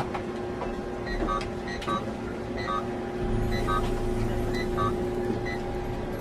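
Submarine control-room background: a steady electrical hum, with short high electronic beeps every half second to a second and a low rumble that swells about three seconds in.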